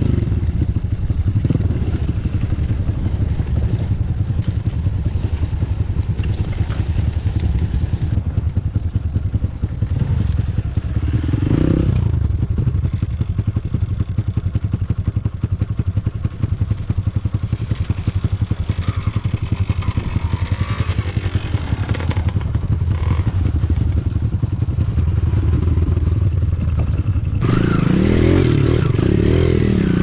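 Enduro dirt bike engine running steadily under way on a trail ride, with more high-pitched noise over the last few seconds.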